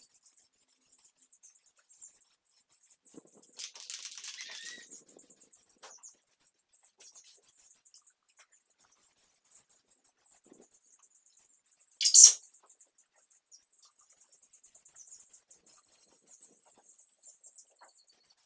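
Aerosol spray-paint can (rattle can) spraying in hissing bursts: a longer spray about four seconds in and a short, loud one about twelve seconds in, with fainter hiss coming and going between.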